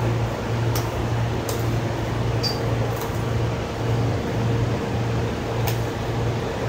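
Low, steady machine hum in a cow barn that swells and dips about twice a second, with a few faint clicks and one brief high chirp about two and a half seconds in.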